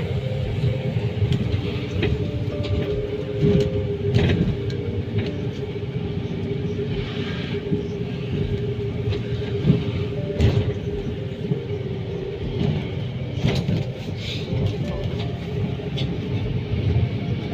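A vehicle in motion: a steady low rumble with a constant whine, and scattered knocks and clicks.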